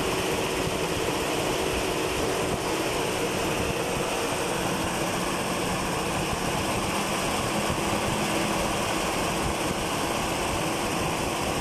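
Nissan P-series 4.0-litre straight-six engine of a 1967 Nissan Patrol idling steadily, heard up close in the engine bay with the fan and belt turning.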